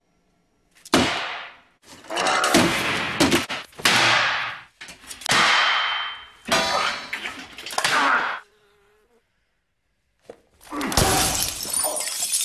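A housefly buzzing in close passes, about six times, each swelling and fading away. After a short quiet gap, a louder jumble of noise with a heavy thump comes near the end.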